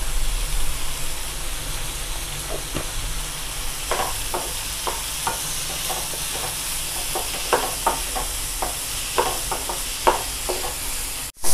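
Diced vegetables sizzling in oil in a kadai, with a steady hiss. From about two and a half seconds in, a wooden spatula scrapes and taps against the pan as they are stirred. The sound cuts out briefly near the end.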